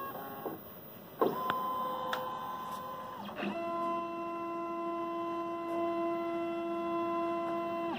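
Othermill desktop CNC mill's stepper motors whining as the machine moves its axes to locate the tool bit's height automatically. One steady tone starts about a second in. About three and a half seconds in, a second, longer move follows with a lower steady tone, and it cuts off suddenly near the end.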